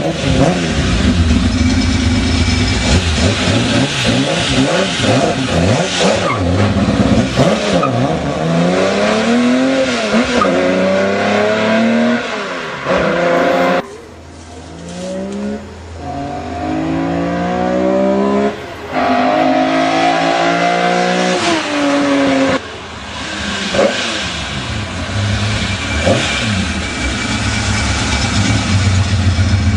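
Nissan Fairlady Z S30Z tuned by Office Tomitaku running hard, its engine pitch rising steeply under acceleration and falling back at each gear change. The sound dips briefly several times as the throttle is lifted, then builds again.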